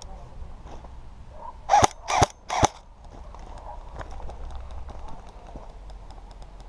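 Airsoft gun firing three single shots in quick succession, about 0.4 s apart, as sharp cracks.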